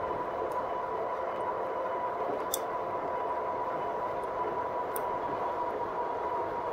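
2018 Rad Power Bikes RadMini electric fat-tire bike riding along: a steady high whine over a rolling hum, with two sharp ticks about two and a half and five seconds in.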